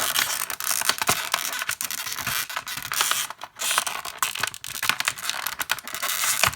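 Packaging crackling, creaking and scraping in a dense run of clicks as a tightly held toy sonic screwdriver is worked and pulled out of its box.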